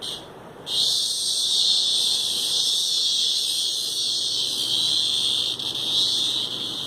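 A cicada caught in a cat's mouth buzzing: a short chirp at the very start, then a loud, steady, high-pitched buzz from under a second in.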